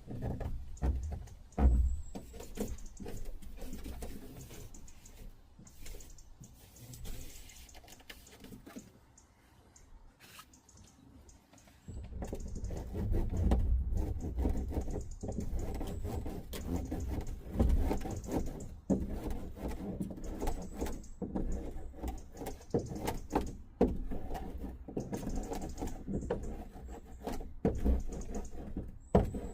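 Irregular clicks and knocks of hand work on the van's sheet-metal roof as sound-deadening mat is pressed on and rolled down. There is a quieter lull about a third of the way in, then the knocking picks up again.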